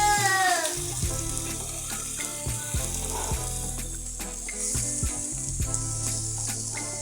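Chicken pieces and onions sizzling as they fry in hot oil in a pot, with many short clicks of a spoon stirring against the pot. A held musical note dies away in the first second.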